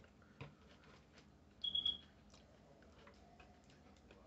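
Light clicks and taps of wooden chopsticks against plastic sushi takeout trays. About one and a half seconds in comes a brief high-pitched squeak, the loudest sound here.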